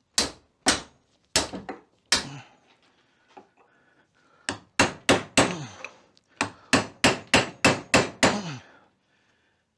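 Hand hammer pounding the old ball joint out of a VW Beetle trailing arm held in a bench vise, sharp metal-on-metal blows with a ringing tail. Four spaced blows, a pause of about two seconds, then a run of about a dozen quicker blows, roughly three a second.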